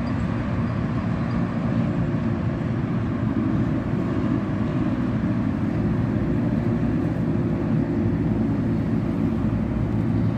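Steady, unbroken rumble of road traffic on a toll road and flyover, with no separate events standing out.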